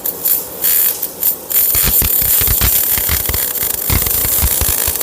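MIG/MAG welding arc crackling and hissing, starting and stopping in short bursts, then a steady weld from about a second and a half in.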